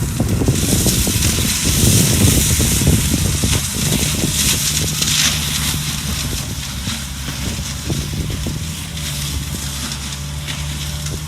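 Skid steer engine running steadily while its mulching drum chews through brush and wood, a dense crunching over the engine hum that is heaviest in the first half and eases off after about six seconds.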